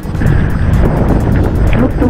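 Background music over a loud, steady low rumble that comes in suddenly at the start.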